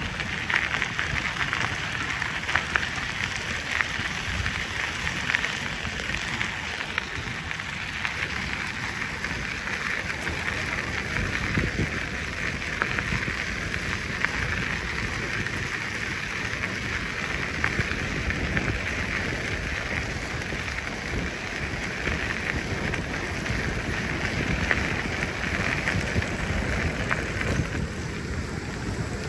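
Steady hiss of a bicycle ride on an outdoor path, with tyre noise and small jolts from bumps in the surface.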